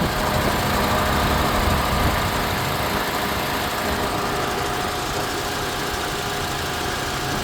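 Honda CR-V's engine idling with the radiator cooling fan running, a steady rush of air over the engine hum. The fan runs because its missing ground has been supplied by a jumper wire, pointing to a lost ground signal as the fault.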